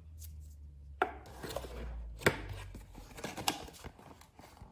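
Close-up handling of stationery on a table: a roll of washi tape put down and a cardboard box picked up, with a few sharp taps and knocks, the loudest a little after two seconds in, and light rustling between.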